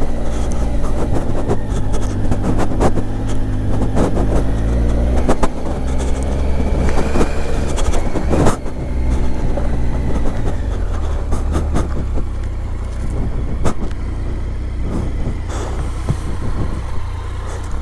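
Motorcycle engine running at a steady pace, its note easing and shifting briefly part way through. Scattered clicks and knocks come through over it, with one sharp knock at about eight and a half seconds.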